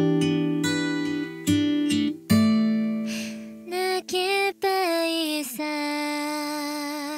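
Song accompaniment of strummed and held acoustic guitar chords, with a female voice singing one short line about halfway through.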